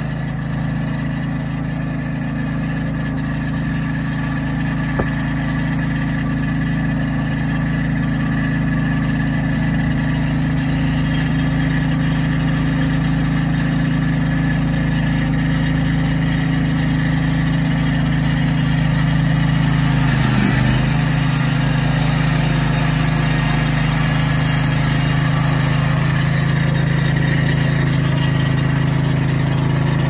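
Swing-blade sawmill's engine running steadily at a constant speed during a cut, with a brighter hiss added for several seconds about twenty seconds in.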